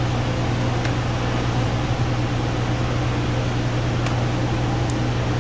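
A steady low mechanical drone with a constant hiss behind it, and a few faint clicks of laptop keys being typed.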